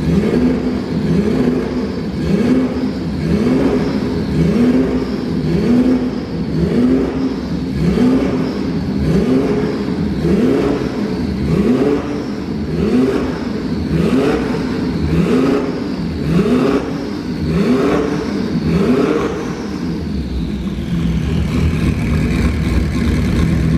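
Turbocharged 2.1-litre flat-six of a 1974 Porsche 911 Carrera RSR Turbo 2.1 being revved over and over, each rev rising sharply and dropping back, about one every second and a half. Near the end the revving stops and the engine settles to a steadier running note while a high whine slowly falls away.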